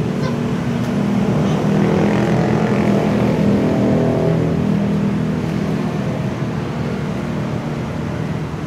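A motor engine drones steadily, growing louder about two seconds in and fading again toward the end.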